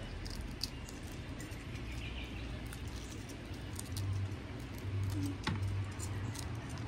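Small sharp clicks and crackles of cooked shrimp shells being peeled apart by hand, scattered irregularly over a faint low hum.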